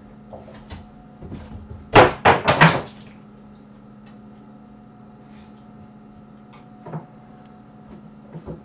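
A quick run of four or five knocks about two seconds in, over a steady low hum.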